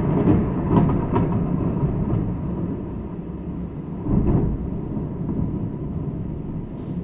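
Thunder rumbling low and long, swelling again about four seconds in.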